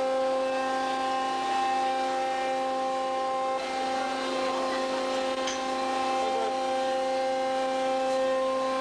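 Machinery in a fishing vessel's processing area running with a steady hum of one droning pitch and its overtones, unchanging in level.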